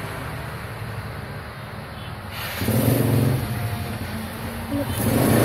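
A motor vehicle's engine running, with a steady low hum that swells louder about two and a half seconds in and again near the end.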